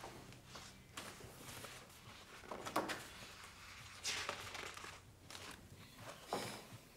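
Pages of a large bound score being turned by hand: about four soft papery swishes a second or two apart.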